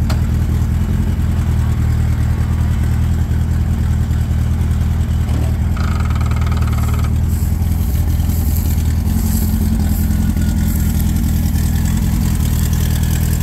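The kit car's air-cooled VW flat-four engine idling steadily.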